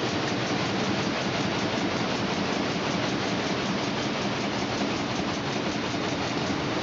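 Electric table fan running: a steady rush of air with a faint, even pulsing.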